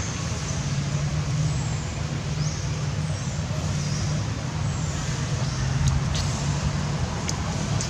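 Steady low rumble of road traffic, with faint short high chirps that fall in pitch over it and a few sharp clicks in the second half.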